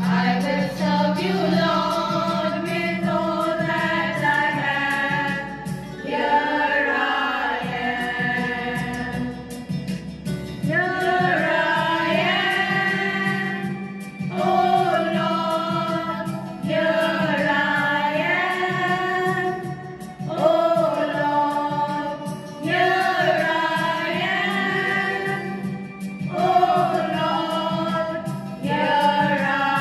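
A group of women singing a song together into microphones, in phrases a few seconds long with short breaths between them.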